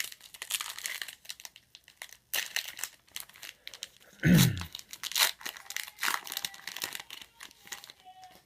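Plastic trading-card pack wrapper being torn open and crinkled by hand, with a louder dull bump about four seconds in.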